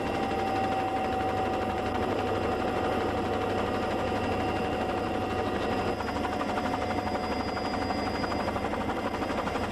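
Offshore racing powerboat's engines running steadily, heard from a camera mounted on board: a dense, rapid rumble with a steady high whine over it.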